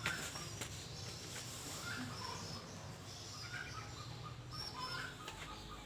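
Birds chirping in short scattered calls over a low steady hum, with a few faint clicks.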